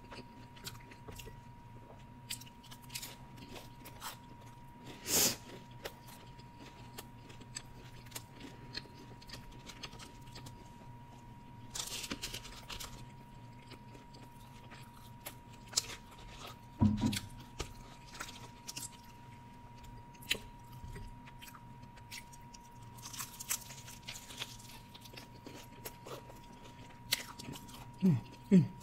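Close-miked chewing and crunching of pizza crust and chicken wings, with scattered mouth clicks and a few louder crunches. A faint steady tone sits underneath.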